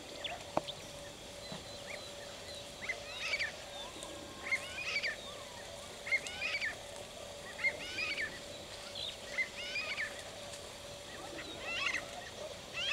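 A bird calling over and over: short phrases of several quick, high notes, starting about three seconds in and repeating roughly every one and a half seconds, over a faint steady hum.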